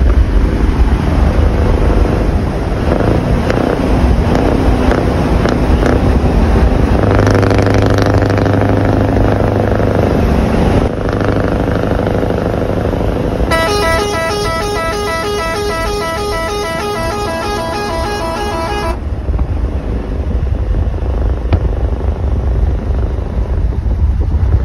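Scania R500 V8 diesel truck running on open, straight exhaust pipes at motorway speed, a deep steady rumble. A little past halfway a horn sounds with a fast pulsing tone for about five seconds.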